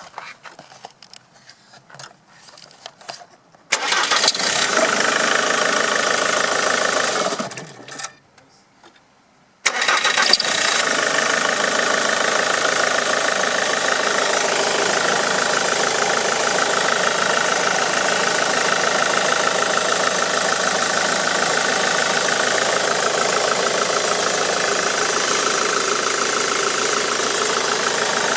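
Ford Mondeo Mk3's 2.0 TDCi Duratorq four-cylinder diesel engine starting after a few faint clicks, running for about four seconds and stopping, then starting again about ten seconds in and idling steadily. The owner points to a chirping noise the engine makes on every start-up.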